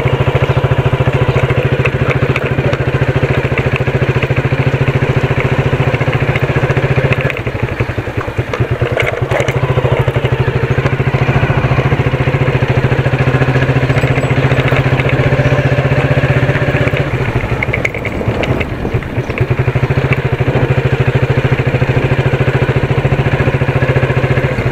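Motorcycle engine running steadily under way, heard from the rider's own bike, its sound dropping briefly twice: about a third of the way in and again after two-thirds.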